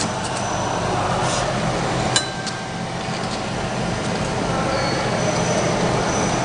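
Steady mechanical hum of a wine-goblet labeling machine's motors and conveyor running. One sharp ringing glass clink about two seconds in.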